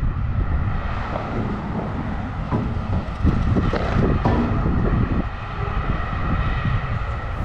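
Padel rally: several sharp knocks of the ball off the paddles, clustered in the middle, under a steady low rumble.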